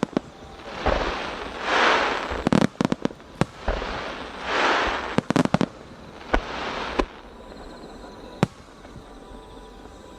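Aerial fireworks shells bursting in a rapid series of sharp bangs, with swells of crackling hiss between them. The bangs thin out after about seven seconds, and one last bang comes about eight seconds in.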